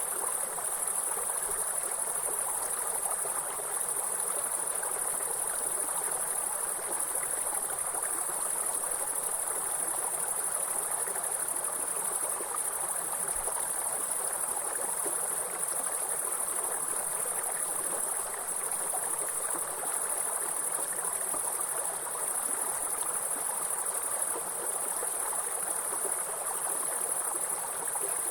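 A steady, high-pitched chorus of insects trilling over the even rush of a flowing stream.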